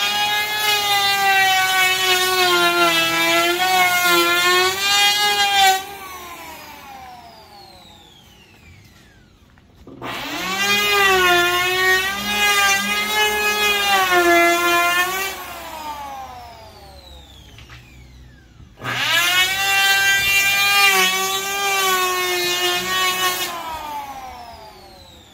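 Electric hand planer shaving the top of a rough driftwood slab, run in three passes of about five seconds each, its whine wavering slightly under load. After each pass the motor spins down in a falling whine.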